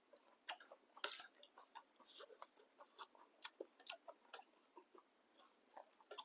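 Quiet close-up mouth sounds of a person eating noodles: chewing with a scatter of small wet clicks and smacks, the loudest about a second in.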